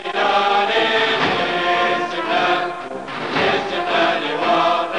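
Choir singing a slow song with musical backing, the sung notes held and changing about every half second, with brief dips in loudness about two and three seconds in.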